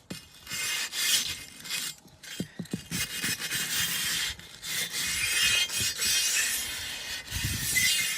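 Small hand wire brush scrubbing rust off the inside of a rusty tractor rim's bead seat, a harsh scratching in long strokes with short breaks.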